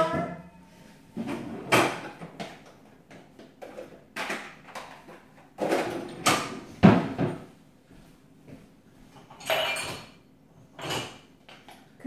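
Kitchen cupboard doors and drawers opening and shutting as dishes are put away: a series of separate knocks and clunks a second or more apart, the loudest about seven seconds in.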